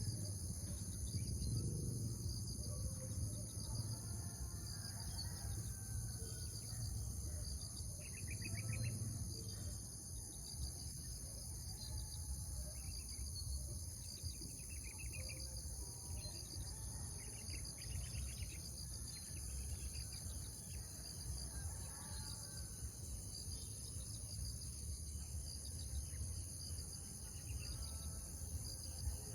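Steady high-pitched chorus of insects outdoors, several constant shrill bands, with short pulsed trills coming and going in the middle and a low rumble underneath.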